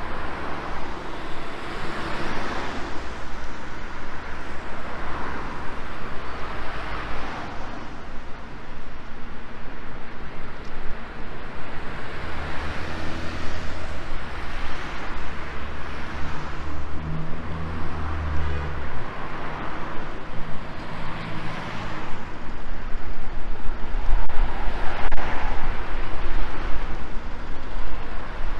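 Street traffic: cars passing close by one after another, each swelling and fading away. A steady low hum joins them in the middle, and the traffic is louder near the end.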